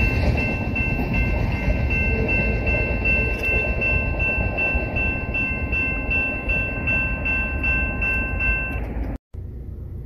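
Railroad grade-crossing warning bell ringing steadily over the low rumble of a freight train moving away. The bell and rumble stop about a second before the end, when the crossing gates lift, leaving a quiet low hum inside a vehicle.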